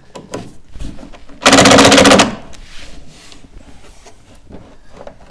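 Electric screwdriver driving a screw into pine in one short burst of just under a second, about one and a half seconds in. Small knocks and handling noise come before and after it.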